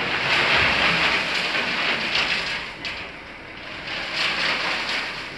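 A load of dark sand or soil sliding out of the raised bed of a Mitsubishi Canter HD dump truck, giving a loud rushing hiss. It is strongest in the first couple of seconds, swells again about four seconds in, and eases off near the end.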